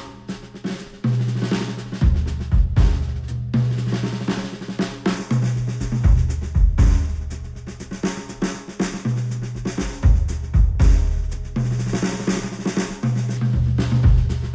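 Instrumental music with a drum kit and a deep, held bass line, played through studio headphones and picked up by microphones at the ear cups.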